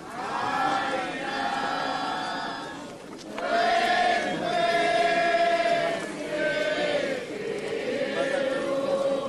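A group of voices singing a slow religious hymn in unison, in three long phrases of held notes with short breaks between them, the middle phrase the loudest.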